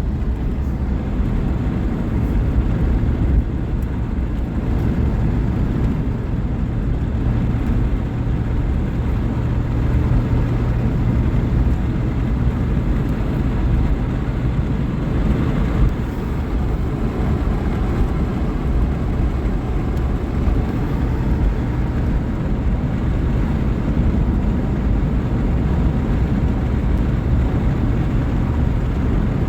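Vehicle driving at steady speed: an even, low engine and road drone with no change in speed.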